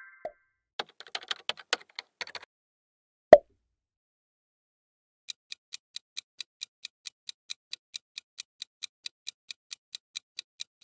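Ticking clock sound effect for a quiz countdown timer: even ticks about four a second, starting about halfway through. Before it come a short flurry of keyboard-like clicks and a single sharp pop.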